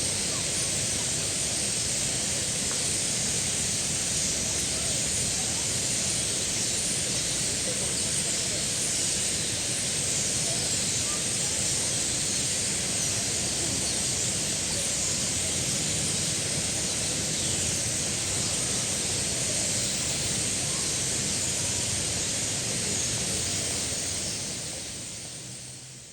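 A large flock of starlings chattering together, a dense, hiss-like wash of many overlapping calls, fading out near the end.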